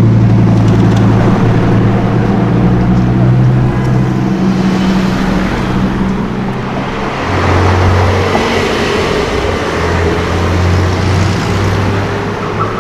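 Loud car engine noise in street traffic: steady low engine notes, with a lower engine note taking over about seven seconds in.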